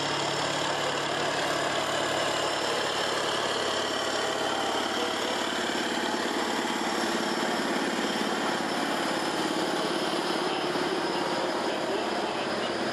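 Kirovets K-700 tractor's diesel engine running hard and steady under load as it pulls a weight-transfer sled down the track.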